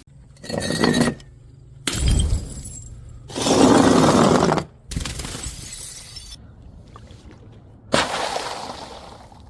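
Glass bottles thrown onto stairs and shattering: about five sudden crashes, each trailing off, the loudest and longest about halfway through.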